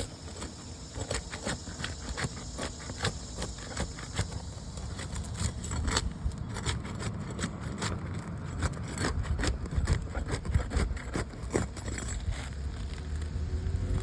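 Metal roof snake and pry bar scraping and clicking against asphalt shingles and roofing nails as a nail is worked loose, in many irregular sharp clicks over a steady low rumble.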